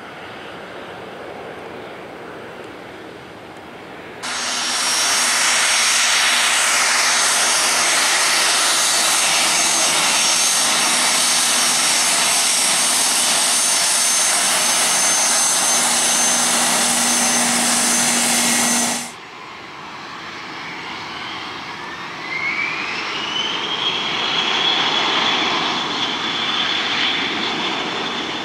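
Jet aircraft engines in three stretches. First the distant roar of an airliner taking off. From about four seconds in, a business jet's engines run loud and close with a high whine and a falling tone, cutting off abruptly near nineteen seconds. Then a rear-engined jet's engines spool up, the whine rising over a couple of seconds and levelling off for the takeoff roll.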